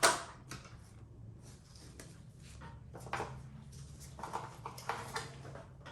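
Hand-handling noises from working on the motorcycle: a sharp knock at the start, then scattered light knocks and rustles over a low steady hum. There is no starter motor or engine sound, because the bike has no power.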